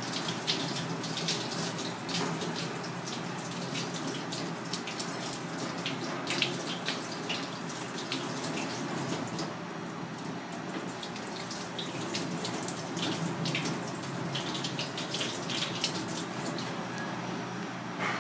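Tap water running into a stainless steel sink, with many short scraping clicks as a metal tool is worked against a piece of fish under the stream.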